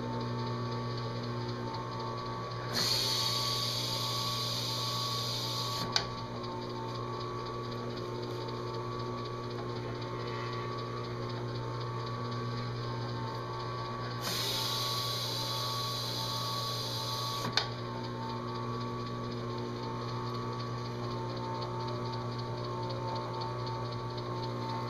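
Drill press motor running steadily as its spinning abrasive pad is pressed twice onto an aluminum dash panel, cutting the swirl spots of an engine-turned finish. Each pass is a high, scratchy grind of about three seconds that ends in a sharp click.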